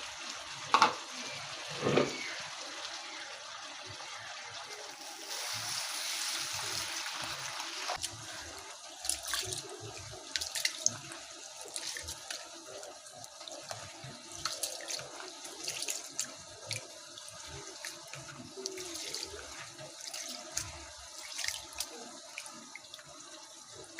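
Raw rice being washed by hand in water. For the first several seconds water pours in with a steady splashing hiss; after that come irregular small splashes and gritty clicks as the grains are swished and rubbed in the water.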